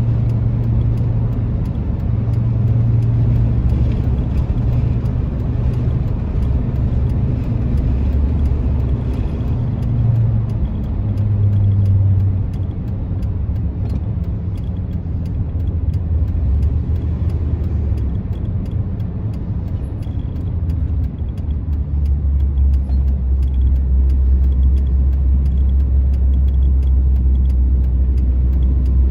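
Car interior road noise while driving: a steady low engine and tyre drone, its pitch shifting a few times.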